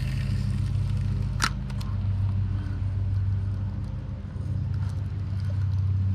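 A steady low mechanical hum of several held tones, like a motor running, with one sharp click about a second and a half in.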